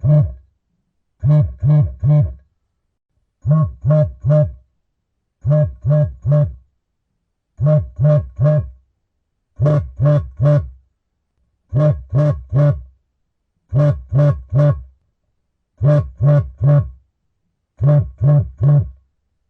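Mobile phone vibrating in a repeating pattern: three short buzzes in quick succession, the group repeating about every two seconds, as for an incoming call.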